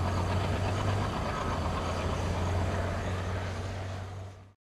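ALCO diesel locomotive with a train: a steady low engine drone over a broad rushing rumble, fading and then cutting off near the end.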